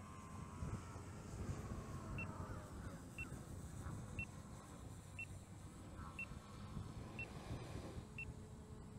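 Precision Aerobatics XR-61 RC plane flying at a distance: its motor and propeller give a faint whine whose pitch slides up and down, under a low rumble. A short high beep repeats about once a second from about two seconds in.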